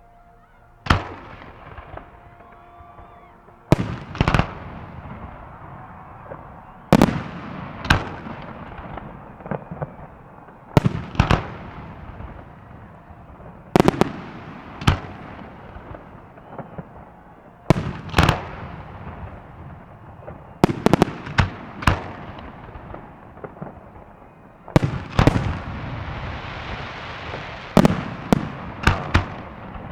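Fireworks salute: sharp shell bursts every few seconds, often two or three in quick succession, each followed by a rolling echo. A long crackling hiss follows one volley a little past two-thirds of the way through.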